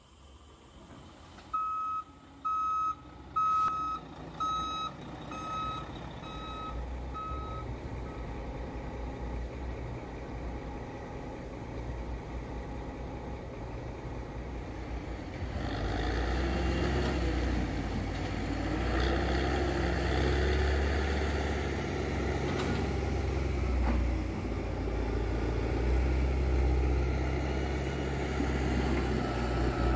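A heavy vehicle's reversing alarm beeping about eight times, evenly spaced and dying away, over a diesel truck engine running. About halfway through the engine becomes clearly louder, a deep steady rumble.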